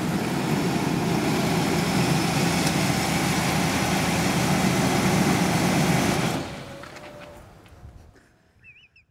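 A van's engine idling with a steady hum, then cut off about six and a half seconds in, the sound dying away quickly. A brief warbling chirp comes just before the end.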